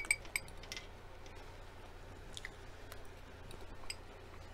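A person chewing shrimp and fried rice with the mouth closed, soft wet chewing sounds. There is a cluster of small sharp clicks in the first half-second and a few single clicks later.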